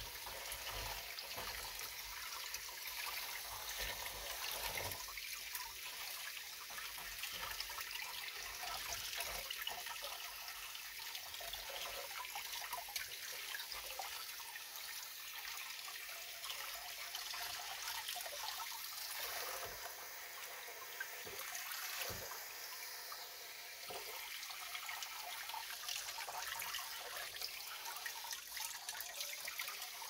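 Sink tap running steadily, the water splashing over hands and a Budgett's frog as it is rinsed and landing in a shallow plastic tub of water below, a continuous light splashing trickle.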